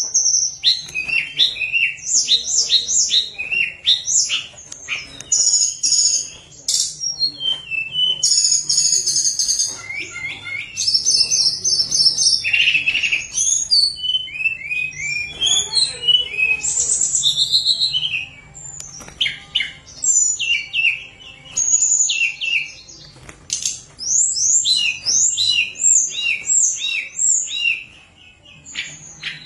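Tledekan gunung, a blue flycatcher, singing a long, varied song of quick high whistled notes and trills, many of them sliding downward, with only brief pauses.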